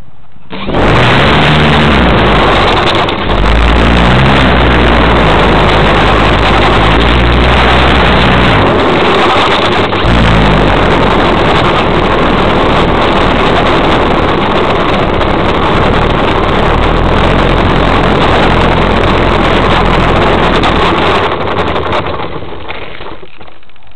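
RC Super Sportster model airplane's motor running loud and close to the onboard camera while the plane rolls along a rough runway. Its note shifts up and down as the throttle changes over the first ten seconds, then holds steady before it cuts off about 21 seconds in.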